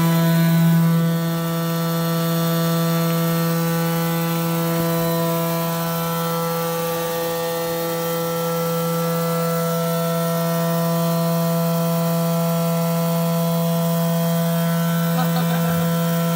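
CNC oscillating knife cutter running: a steady, unchanging mechanical hum with several higher overtones.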